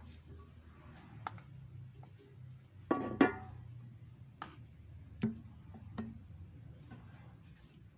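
Metal paint tins handled on a concrete floor: a loud knock as a tin is set down about three seconds in, with several lighter knocks and clicks before and after as the tins are picked up and moved.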